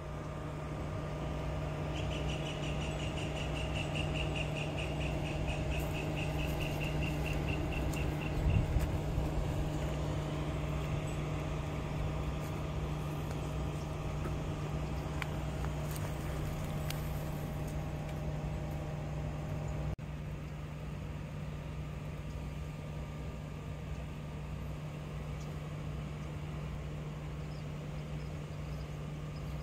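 A steady low hum like a distant engine running, under outdoor ambience. A rapid, high-pitched trill runs from about two seconds in for some six seconds, and a brief thump comes about a third of the way through.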